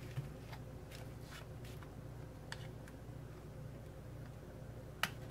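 Faint clicks and scrapes of a flat screwdriver prying a stubborn CTS slide potentiometer loose from an ARP synthesizer's circuit board, with one sharper click about five seconds in, over a steady low hum.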